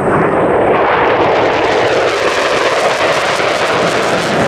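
F/A-18-family twin-engine fighter jet flying by, a loud, steady rush of jet engine noise.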